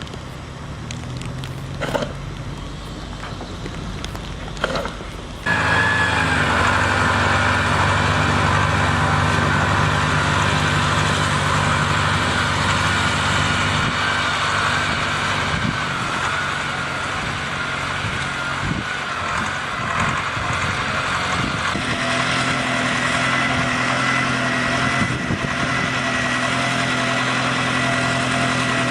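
A few sharp knocks over quieter background noise, then abruptly, about five seconds in, an engine running steadily with a whine over it, keeping on to the end with a small shift in pitch late on.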